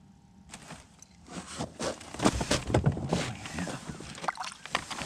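Close, irregular crunching and knocking on snowy ice as someone steps up to a fishing hole and handles the flasher's transducer and its cord. The sound starts about half a second in and is loudest in the middle.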